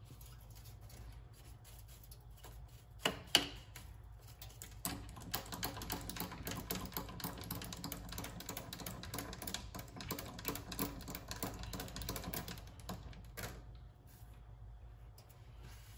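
Two sharp knocks about three seconds in, then rapid, irregular clicking and rattling for about eight seconds as the compound-slide handwheel of a mini lathe is cranked by hand, with the spindle stopped.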